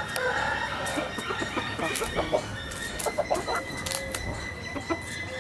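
Domestic chickens clucking in short, irregular calls.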